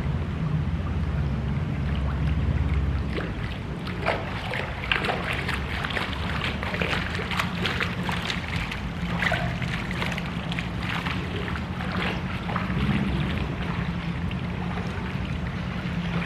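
A steady low vehicle-like rumble with wind noise. A run of clicks and rattles comes through the middle.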